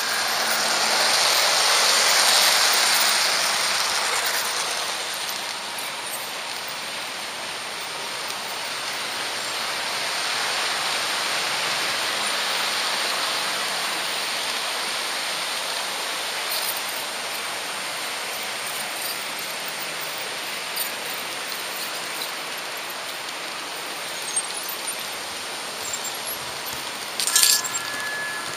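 HO-scale model train rolling along the track: a steady hiss of small wheels on the rails, swelling for the first few seconds as an oncoming model train passes close by. Near the end, a short clatter as the train runs over the turnouts.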